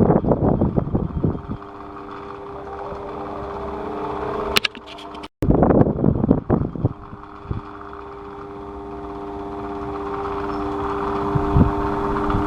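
Electric fan running with a steady hum and airy whoosh. Low rumbling buffets break in during the first second or so and again about six seconds in, just after a brief cut-out in the sound.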